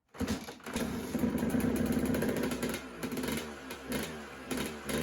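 Suzuki RM250 two-stroke single-cylinder motocross engine running right after being kick-started. It holds a steady note at first, then is blipped on the throttle with the pitch rising and falling.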